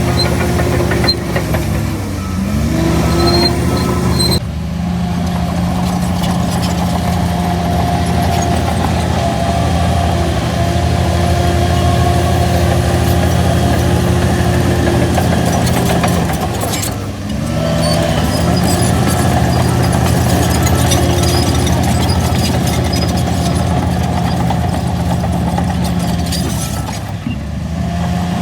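Shantui DH17C3 bulldozer's diesel engine running steadily under load while pushing soil; the engine note drops and climbs back up three times, about two, seventeen and twenty-seven seconds in.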